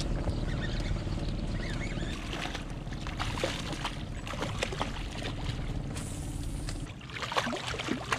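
Boat motor running steadily, then dropping away about seven seconds in, while water splashes and slaps as a hooked striped bass thrashes at the surface beside the boat.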